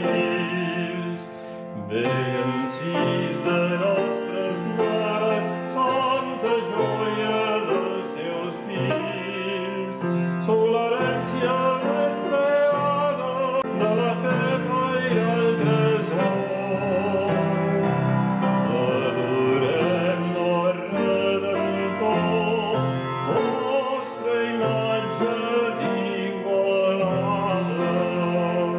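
A male singer sings a Catalan devotional hymn (goigs) in a trained, operatic style with vibrato, accompanied by piano.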